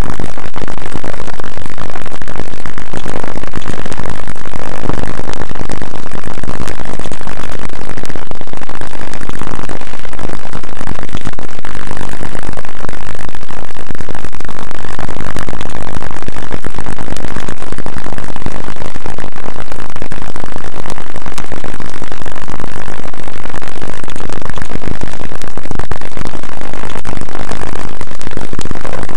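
Steady, harsh, heavily distorted noise at full loudness, clipped throughout with no clear pattern or beat.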